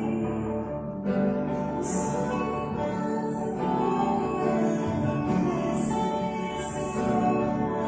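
Music: a church band of piano, drums, bass and guitars playing a slow, gentle song, with brief high shimmering accents about once a second.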